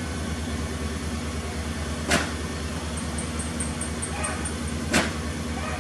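Engine idling steadily with a low hum, with two sharp knocks about three seconds apart.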